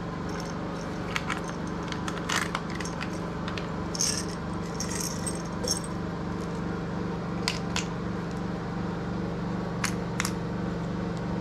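Pills rattling and clicking as they are sorted and dropped into a pill organizer: scattered small clicks, with a cluster of rattling about four to six seconds in, over a steady low hum.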